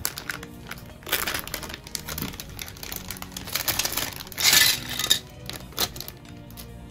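Plastic parts bag crinkling and rustling in irregular bursts, loudest about four and a half seconds in, over background music.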